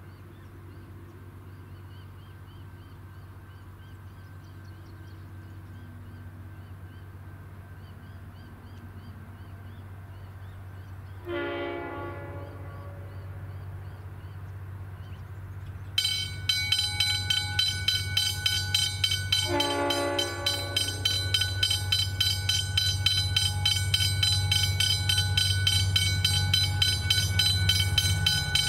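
A V/Line diesel passenger train approaching, its low engine rumble growing louder, sounds its horn twice, about eleven and nineteen seconds in. About sixteen seconds in, the level crossing's warning bell starts ringing rapidly, about two strokes a second, as the crossing signals activate.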